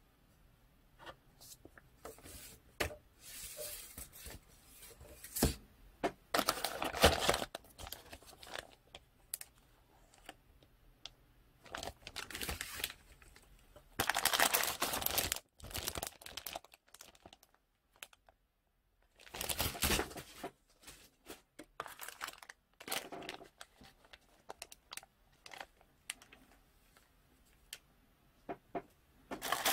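Paper instruction sheet and cellophane-bagged plastic kit parts being handled: irregular bursts of rustling and crinkling with light clicks, pausing between handfuls.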